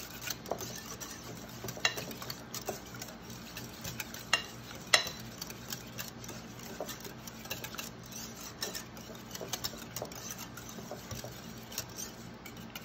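Wire whisk beating canned cream of chicken soup and milk in a glass bowl: a wet, thick stirring sound with irregular light clicks as the wire tines strike the glass.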